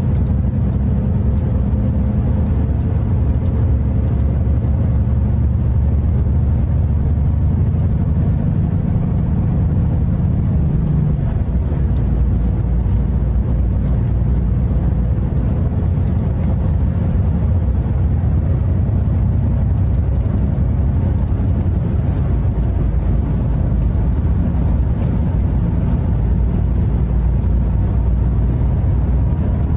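Scania R580 truck's V8 diesel engine and road noise heard inside the cab at steady motorway cruising speed: an even, unbroken low drone.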